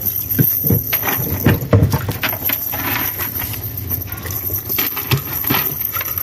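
Metal chain weights of a cast net clinking and knocking irregularly on a wooden boat deck as the net is shaken out to free the catch, with a few heavier thumps in the first couple of seconds.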